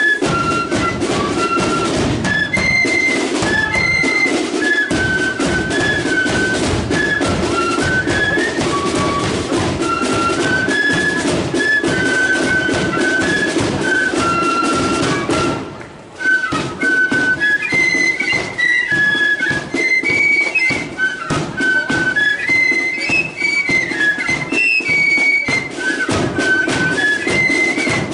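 Marching flute band playing a tune, flutes carrying a high melody over drums. The playing breaks off for a moment partway through, then carries on.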